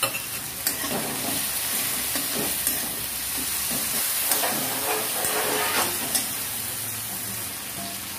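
Metal spatula stirring and scraping a tomato-onion masala frying in oil in a wide metal kadai. A steady sizzle runs under repeated short scrapes and clicks of the spatula against the pan.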